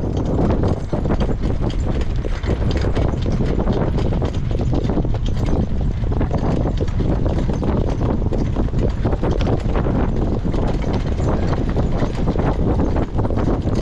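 Harness horse's hooves beating rapidly on a dirt track at speed, heard from the cart behind it, with low rumbling wind noise on the microphone.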